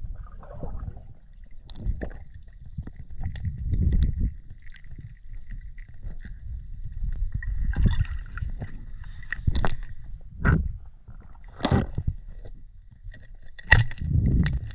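Water sloshing and gurgling around a mask-mounted GoPro while freediving: a low muffled rumble broken by several short gurgling surges, the loudest near the end.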